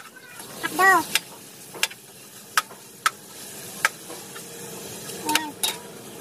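A spoon stirring in a saucepan, knocking and scraping against the pot about every half second to second, over a faint sizzle of meat and fat frying.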